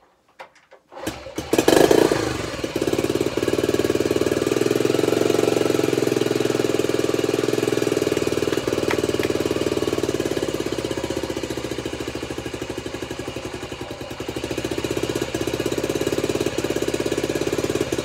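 Honda CT90's small single-cylinder four-stroke engine catching on a kick about a second in, firing up for the first time after a restoration and new wiring harness, then running steadily with an even pulsing beat. Its loudness sags slightly partway through and picks up again.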